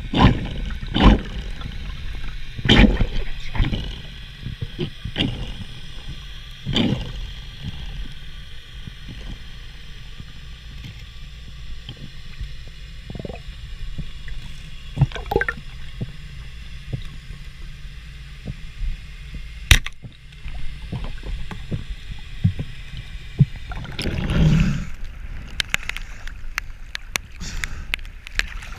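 Underwater sound picked up by a camera in the water as a freediver swims: a steady low rumble of water with scattered sharp clicks and knocks, and a louder stretch of water noise about 24 seconds in.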